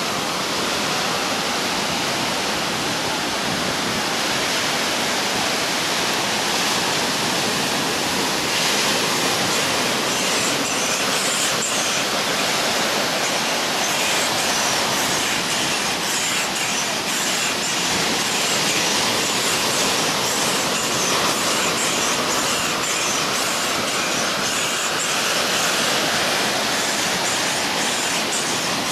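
Steady rushing of small waves breaking and washing up a sandy beach, an even hiss with no pauses.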